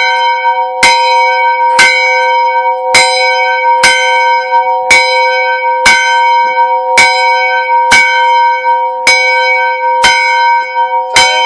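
School bell ringing with eleven even strokes about a second apart, each stroke ringing on into the next. The bell has a crack in it.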